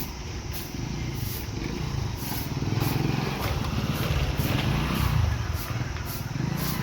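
Diesel locomotive running with a steady low rumble as a train passes, with repeated sharp clicks over it.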